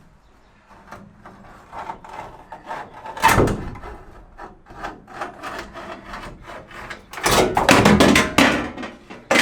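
Copper wire being pulled back and forth behind a thin steel van panel, sawing through the adhesive tape that holds a cross brace to it: rasping, scraping strokes, one short loud one about three seconds in and a longer, louder run about seven seconds in.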